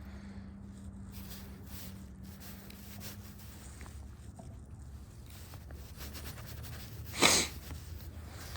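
One sharp sniff about seven seconds in, over a steady low rumble and a faint low hum that stops after a few seconds.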